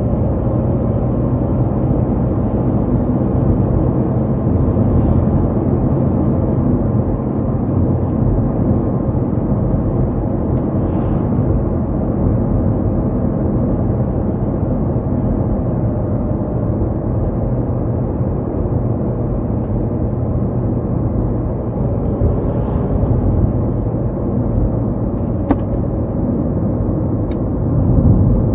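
Car driving steadily along a road: engine running with a continuous low rumble of tyre and road noise, and two brief clicks near the end.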